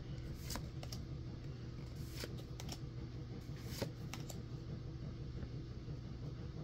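A small stack of Pokémon trading cards being flipped through by hand, one card slid from the back to the front at a time, giving soft, irregular card clicks and slides over a low steady hum.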